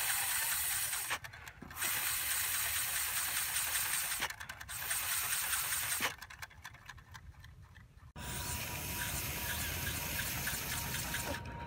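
A steady hiss that drops out briefly three times, then, from about 8 seconds in, the light, fast, even clatter of a homemade syringe engine with a CD flywheel, run by air blown through its brass inlet tube, over a rush of breath.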